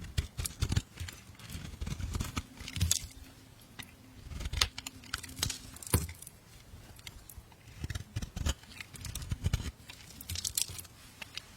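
A knife cutting and scraping bar soap: irregular crisp scrapes and crunches, with several sharper cuts spread through.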